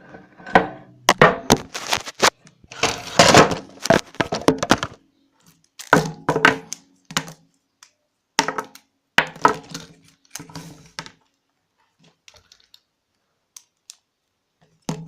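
Irregular clusters of knocks and clatter, dense for the first five seconds, then sparser with quiet stretches toward the end.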